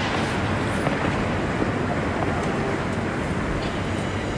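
Steady murmur of a tennis crowd between points, with no ball strikes.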